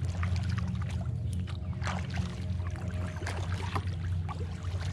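Kayak paddle strokes: water splashing and dripping off the paddle blades in short irregular splashes, over a steady low hum.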